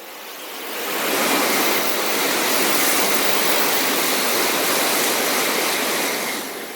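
Sanyo Shinkansen high-speed train passing close by at speed: a loud, steady rush of air and wheel noise that swells in over about a second, holds for about five seconds, then begins to fade near the end.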